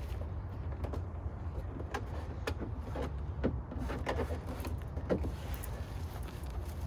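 Irregular clicks and knocks of hard plastic as a car's interior door trim panel is handled and pressed back onto the door, over a steady low rumble.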